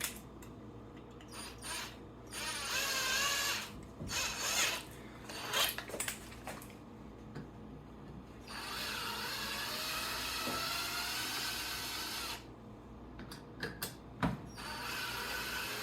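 Cordless power drill backing screws out of the RC truck's plastic bumper, running in several short bursts and one longer run of about four seconds, its whine gliding up and down in pitch, with small clicks of parts and bits between.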